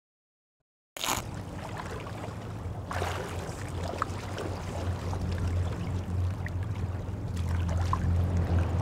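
Silence for about a second, then sea water lapping and sloshing in small waves over a low steady hum.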